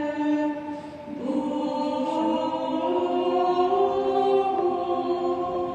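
Background music: a monastery choir singing a slow chant in long held chords, moving to a new chord about a second in.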